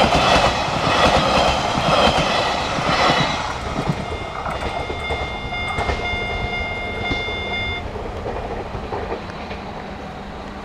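A train clatters over the level crossing for the first few seconds, wheels clacking on the rail joints. As it clears, the crossing's electronic single-tone warning bell carries on at a changed pitch, the 変音 (tone-change) signal given once the train has passed. It stops suddenly about eight seconds in, leaving fading background noise.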